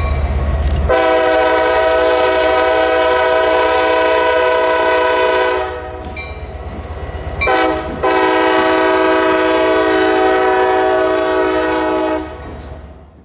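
Diesel locomotive's air horn sounding two long blasts, each about four and a half seconds, over a steady low rumble from the train.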